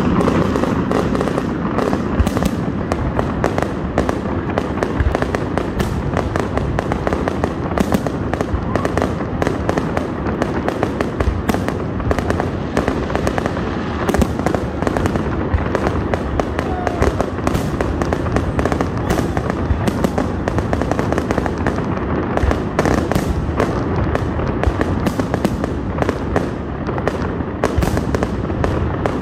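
Fireworks display: aerial shells bursting one after another in a dense, unbroken barrage of booms and crackles.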